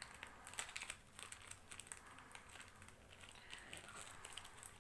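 Small paperboard box of watercolour paint tubes being handled and slid open by hand: faint rustling with scattered light clicks and taps.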